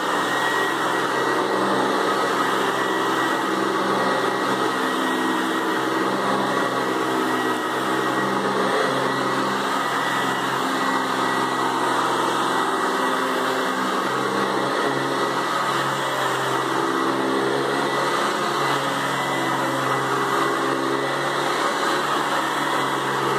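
Hoover Convertible upright vacuum cleaner running steadily, motor and spinning brush roll giving a steady hum with a high whine.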